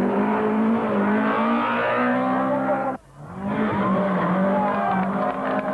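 Rally car engines running hard on a gravel stage, the engine note holding high and shifting in steps. About three seconds in the sound cuts off briefly, and a second car's engine comes in.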